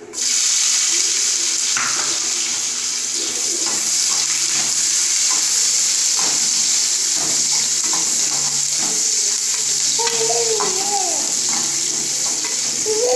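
Hot oil sizzling loudly and steadily in a kadai as whole spices fry, starting suddenly, with a slotted metal spatula stirring and ticking against the pan. Short wavering gliding tones sound about ten seconds in and again at the end.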